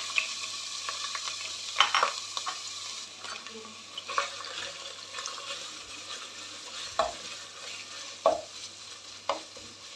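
Chicken mince frying in hot oil in a saucepan, a steady sizzle that slowly dies down, with a spatula scraping and knocking against the pan every second or two as the mince is stirred.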